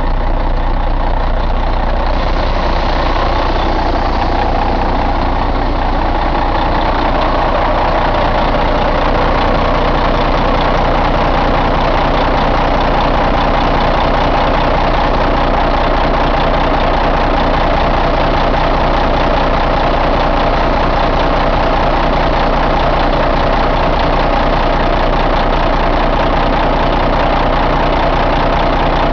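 2006 Caterpillar C15 inline-six diesel engine idling steadily.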